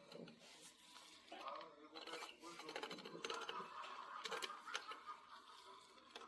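Faint, irregular light clicks and taps, like small hard objects being handled.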